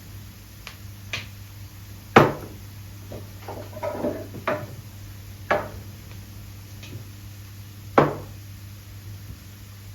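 Household objects knocking on hard surfaces, a handful of separate sharp knocks and clinks, the loudest about two seconds in and again near eight seconds, over a steady low hum.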